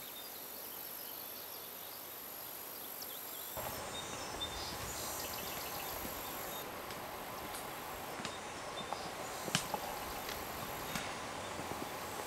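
Outdoor woodland ambience: a steady hiss with faint chirps, changing abruptly about three and a half seconds in to fuller outdoor noise with scattered clicks and knocks.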